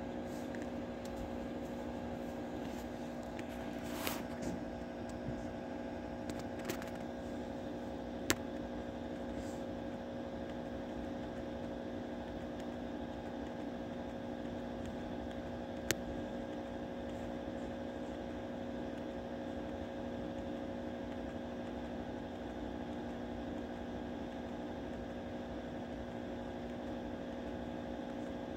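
Steady electrical hum with a few fixed tones, broken by a handful of short sharp clicks, most of them in the first half.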